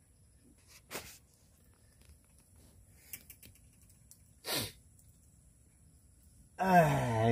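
Faint background with a brief noise about a second in and a short, sharp burst about four and a half seconds in. Near the end a loud, drawn-out voice starts, its pitch dipping and then rising.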